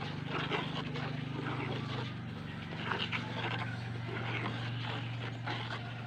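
Thick paint being stirred with a stick in a plastic tub, with faint scraping and sloshing. Under it runs a steady low hum that drops slightly in pitch about two and a half seconds in.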